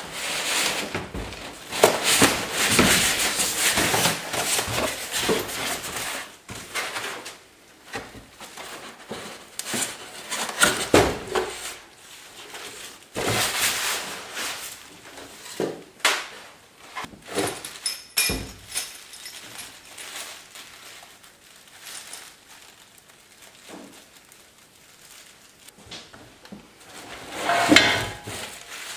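Packaging being handled: a moulded polystyrene foam insert rubbing and scraping against a cardboard box as it is worked loose and lifted out, with scattered knocks and thuds. Near the end comes a louder rustle of plastic wrapping as a wrapped part is lifted.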